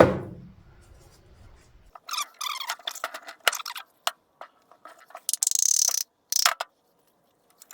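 Metal engine parts (a VW piston and its wrist pin) being handled and worked: a thump at the start, then irregular small clicks and scrapes, with a short hiss about five seconds in.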